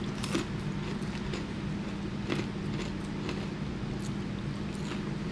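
Chewing crunchy Hot Cheetos with the mouth close to the microphone: a scatter of faint, crisp crunches over a steady low hum.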